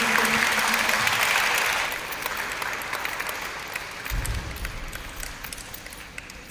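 A group applauding, with dense clapping at its loudest at first and dying away over the next few seconds. A brief low thump about four seconds in.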